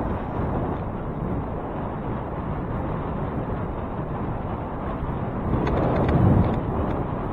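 Steady low rumble of wind buffeting the microphone on a moving bicycle, mixed with road noise, swelling louder about six seconds in.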